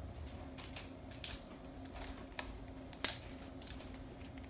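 Thin pattern paper rustling and crinkling under the hands as pieces are pressed and taped down, in a string of light clicks, with one sharp click about three seconds in.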